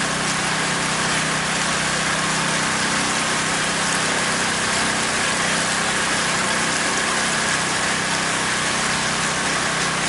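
Pontoon boat's outboard motor running steadily, a constant hum with a thin steady whine over an even hiss.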